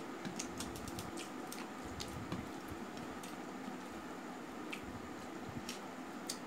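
Close eating sounds: wet, smacking clicks from chewing and from fingers mixing rice and chicken curry on a steel plate, thickest in the first second or so and then scattered, over a steady low hum.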